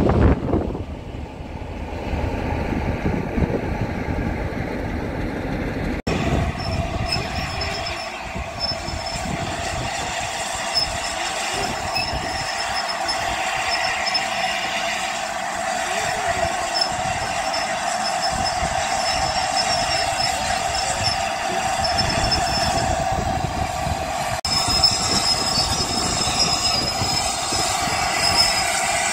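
LNER A4 steam locomotive 60007 'Sir Nigel Gresley' standing at a station platform, simmering with a steady drone and hiss.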